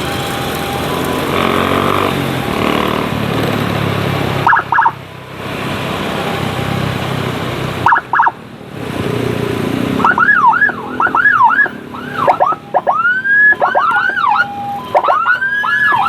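Electronic escort siren on a motorcycle: a motorcycle engine runs at first, two short double chirps from the siren come at about four and a half and eight seconds, and from about ten seconds the siren goes into a fast repeating pattern of rising-and-falling whoops.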